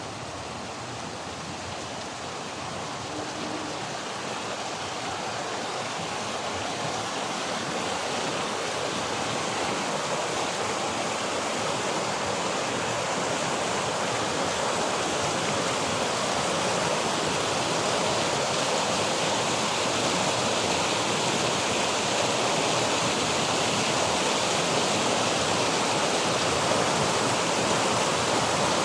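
Waterfall: a steady rush of falling water that grows gradually louder.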